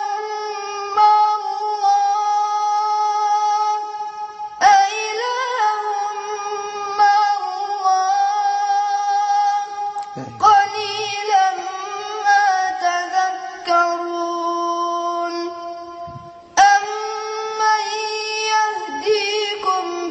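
A boy's solo voice reciting melodically in long, ornamented held phrases. A new phrase begins about a quarter of the way in, again about halfway, and again near the end.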